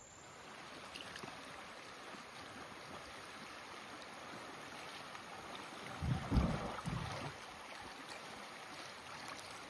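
Steady rush of shallow river water running over a rocky riffle, with a brief low rumble of bumps about six seconds in.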